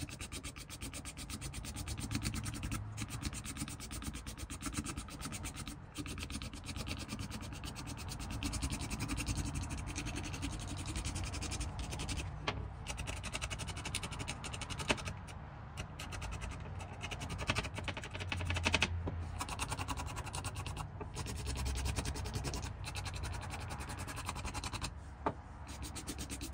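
A hand scraper rasping along an old wooden axe handle in rapid back-and-forth strokes, stripping its weathered surface down to fresh wood.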